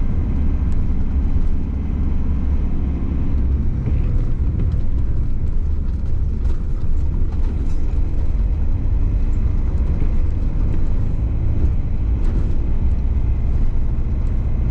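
Citroen van's engine and tyre noise heard from inside the cab while climbing a mountain road: a steady low rumble.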